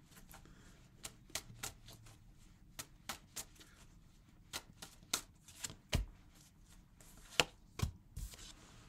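Tarot cards being shuffled and handled: a string of soft, irregular flicks and taps, the sharpest about seven and a half seconds in.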